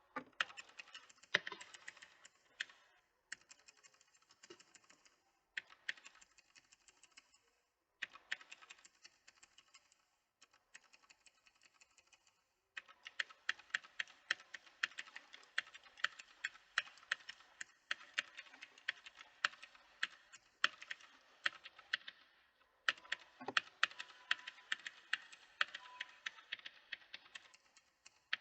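Typing on a mechanical keyboard: rapid key clicks in short bursts with brief pauses, then steady fast typing from about halfway on.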